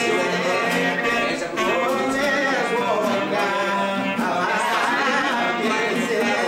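Men's voices singing a Greek folk song (dimotiko) together, with an instrument playing along.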